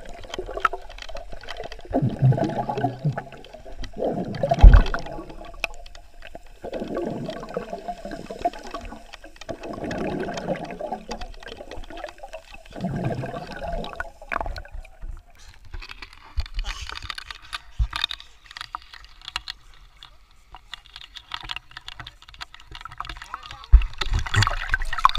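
Muffled underwater sound from a camera held below the sea surface: several bursts of bubbling as a swimmer breathes out. Later the sound turns to a lighter hiss of water, with splashing as the camera comes to the surface near the end.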